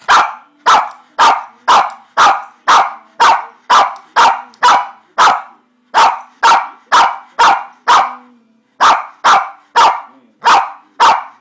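Small shih tzu barking over and over, about two short, sharp barks a second, with brief pauses about halfway through and again about two-thirds through.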